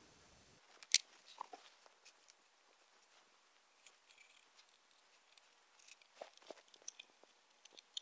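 Soft, scattered clicks and taps of a sheet-metal power supply case and a plastic part being handled and set down on a wooden workbench, the sharpest tap about a second in.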